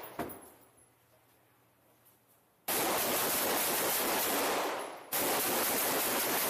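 Long bursts of automatic gunfire: one dying away at the start with a single sharp crack just after, then, after a quiet gap, two sustained bursts of about two seconds each, back to back.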